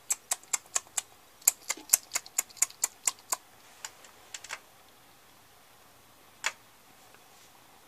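A quick run of sharp clicks, about four a second for the first three and a half seconds, then a few scattered clicks and a last one about six and a half seconds in.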